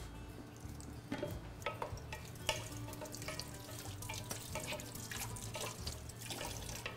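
Kitchen sounds: scattered light clinks and scrapes of a wooden spoon stirring in a pot, with water running at a sink, over a low steady hum.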